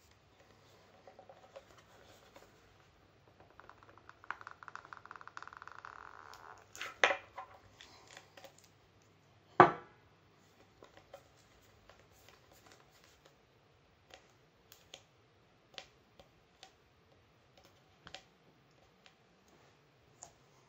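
Hands handling a turntable plinth and its metal spiked foot: a scraping rattle for a couple of seconds as the foot is worked off, then two sharp knocks, the second the loudest, followed by scattered light clicks and taps.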